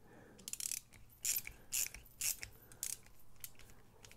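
Ratcheting screwdriver clicking in about five short bursts, roughly one every half second, as it is turned back and forth to back out a folding knife's pivot screw.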